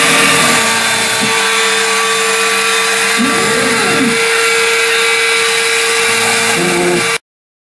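Homemade hobby CNC machine running: a steady high-pitched whine from its spindle motor, with a lower motor tone that rises and falls in pitch about three and a half seconds in. The sound cuts off suddenly near the end.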